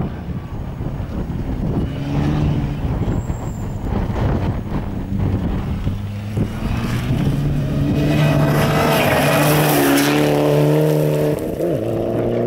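Mitsubishi Lancer Evolution rally car on a gravel stage, its turbocharged four-cylinder engine revving hard through the gears as it slides through a corner. The revs climb and hold, with gravel spraying loudest as it passes, then fall sharply near the end as the driver lifts off.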